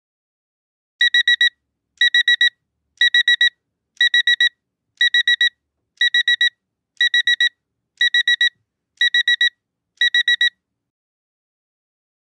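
Electronic alarm beeping: quick groups of four short, high, steady beeps, one group a second, ten groups in all, then it stops.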